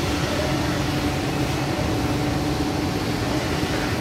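Palm kernel crushing plant machinery running steadily: a constant mechanical noise with a steady hum.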